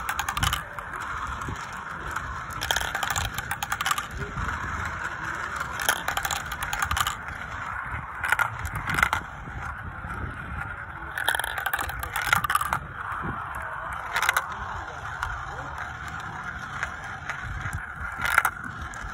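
Glass marbles rolling round the clear plastic funnel bowls of a toy marble run: a steady rolling whir, broken by sharp clicks and clacks as marbles knock together and drop through the plastic tubes.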